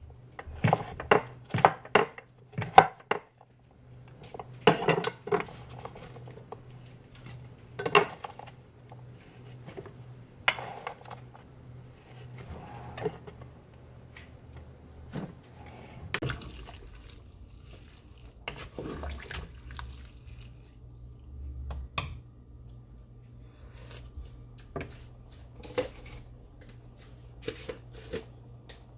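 Chef's knife chopping zucchini on a wooden cutting board, about three quick chops a second for the first three seconds. Then scattered single knocks and clatter of kitchen utensils, over a steady low hum.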